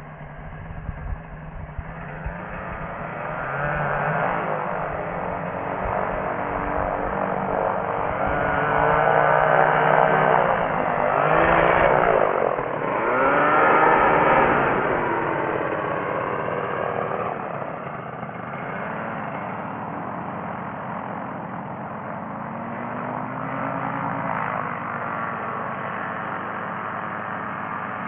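Rotec Rally 2B ultralight's engine and propeller running at slow taxi, growing louder as the aircraft rolls close past, loudest about halfway through with the pitch sweeping as it goes by, then settling to a steady, somewhat quieter drone.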